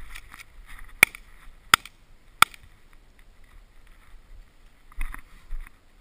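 Three shotgun shots in quick succession, about two-thirds of a second apart, the first the loudest.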